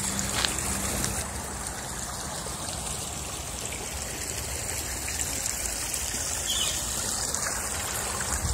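Small woodland stream trickling steadily.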